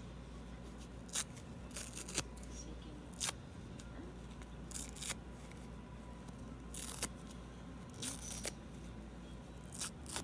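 Foam sponge being torn apart by hand: about ten short ripping bursts at irregular intervals, a second or so apart.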